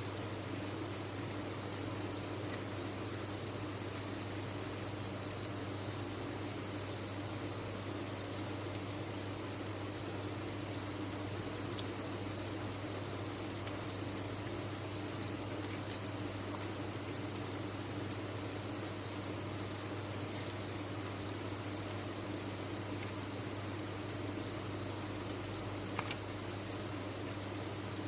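Many farmed crickets chirping at once in a dense, steady, unbroken high-pitched chorus, with a faint low hum underneath.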